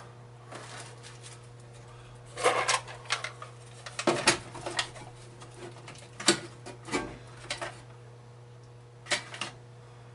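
Irregular clicks and knocks, as of hard objects or tools being handled, over a steady low hum.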